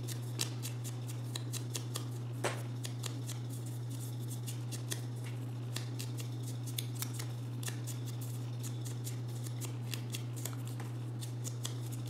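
Small ink dauber dabbed onto the edges of a cardstock flower petal: irregular light taps and paper rustles, a few a second, over a steady low hum.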